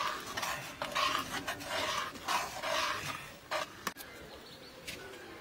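A steel ladle scraping and stirring thick fish and pumpkin curry in an iron kadai: a run of short, rasping strokes that stops about three and a half seconds in.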